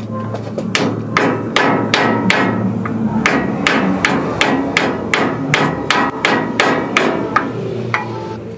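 Small sledgehammer striking a wood block held against a 2017 Toyota Tacoma's front wheel hub, a steady run of about three blows a second, knocking the CV axle's splined end through the hub to free the axle. The blows stop shortly before the end.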